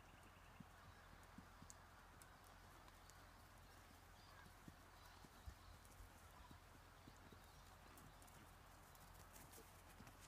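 Faint hoofbeats of a ridden horse moving over grass: scattered soft thuds over a low steady rumble.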